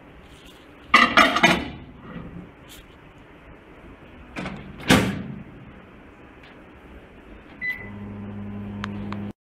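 Microwave oven being loaded and started: a ceramic dish clatters onto the glass turntable about a second in, the door shuts with a knock near the middle, a keypad beep sounds, and the oven starts its steady low hum.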